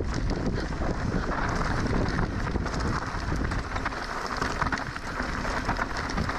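Wind buffeting the microphone on a mountain bike ridden down a trail, with tyre noise and a constant clatter of small knocks and rattles from the bike over rough ground.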